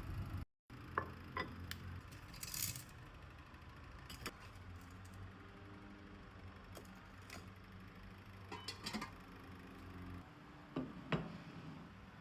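Breakfast being prepared by hand in a kitchen: scattered light clicks, taps and clinks of crockery and utensils, with a brief rustle about two and a half seconds in. A steady low hum underneath stops about ten seconds in.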